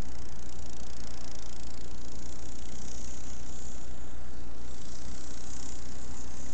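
Mini bike's small engine running steadily while riding over snow, under a dense, steady rush of noise.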